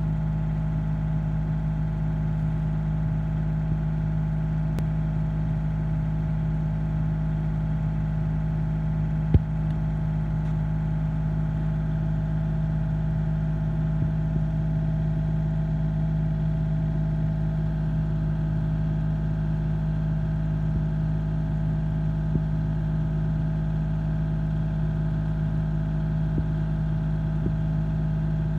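An engine idling steadily, a constant hum with an even drone that never changes; one brief sharp knock about nine seconds in.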